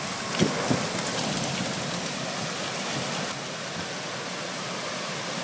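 Heavy rain from a tornadic thunderstorm falling steadily as an even hiss. A few sharp taps come in the first couple of seconds, and the hiss eases slightly a little past halfway.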